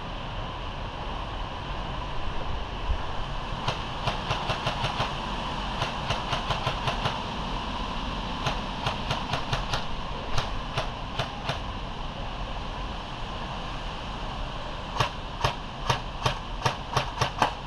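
Airsoft guns firing in several strings of rapid shots, about six a second, over a steady background hiss.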